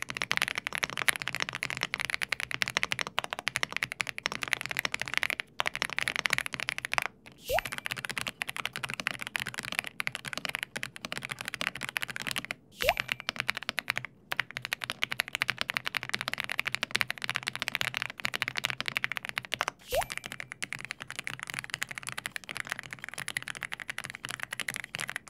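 Fast, continuous typing on tenkeyless mechanical keyboards, a dense clatter of keystrokes. The keyboards are heard in turn: a DAREU EK87 Pro with Cloud linear switches, then AULA Tarantula F87 Pro and F87 boards with Leobog yellow switches, then an F87 Pro with Leobog grey-wood switches. Each change of keyboard comes with a brief break.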